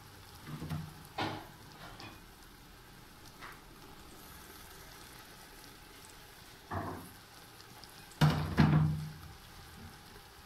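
Faint steady sizzle of onion-tomato masala frying in a pot, broken by a few knocks and clatters as fried okra slices are tipped in and turned with a wooden spoon; the loudest pair of knocks comes about eight seconds in.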